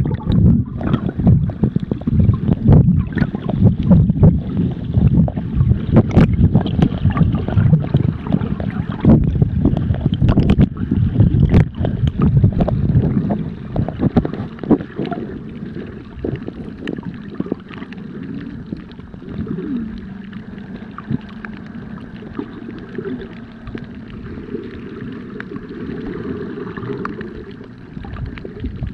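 Muffled underwater sound picked up by a submerged camera: water rushing and sloshing with many sharp clicks and knocks for about the first half, then a quieter, steadier low rumble.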